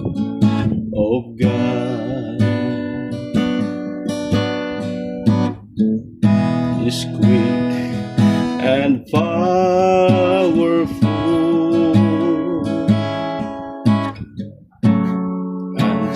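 Strummed acoustic guitar playing chords, with a voice singing a wavering melody over it at times.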